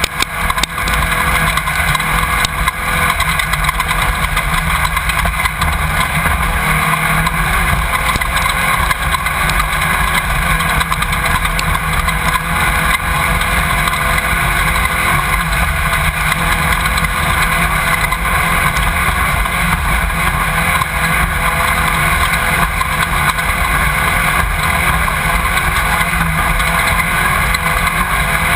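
Off-road race car's engine running hard at speed, picked up by an onboard camera mounted in the car, a loud, steady roar mixed with drivetrain and wind noise.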